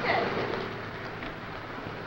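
Steady street noise of traffic under the hiss of an old film soundtrack, slightly louder in the first half second.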